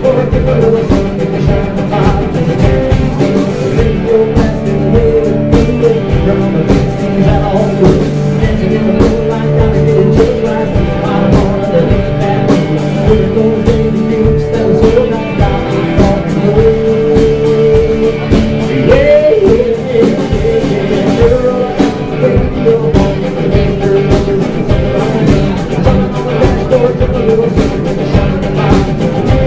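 Live country band playing amplified, with electric guitar, acoustic guitar and drums keeping a steady beat.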